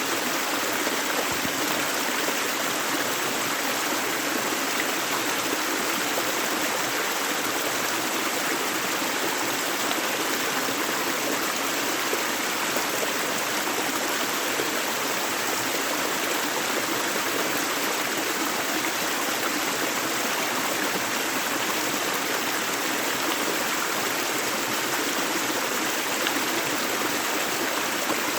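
Gentle river, water flowing steadily over rocks in an even, unbroken rush.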